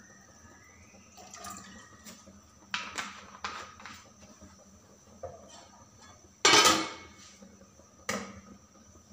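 Aluminium cooking pot and lid clanking: a few light clinks, then a loud metal clank with ringing about six and a half seconds in as the lid goes on, and another shorter clank near the end.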